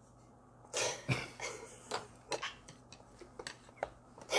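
A short cough-like burst just under a second in, followed by scattered soft rustles and clicks from a fabric backdrop being handled.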